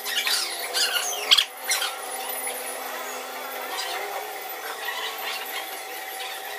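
Hands working on an open Honda motorcycle engine, handling metal engine parts and an oil bottle around the piston and cylinder studs. Short clicks and rubbing sounds come in the first two seconds, the sharpest about a second in, then quieter handling over a steady hum.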